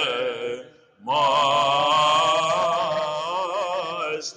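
Male cantor chanting a Byzantine hymn in Greek, a drawn-out melismatic phrase with wavering ornaments, over a steady held drone (the ison). The lead voice breaks off for a breath just under a second in, then resumes with a long ornamented line while the drone continues.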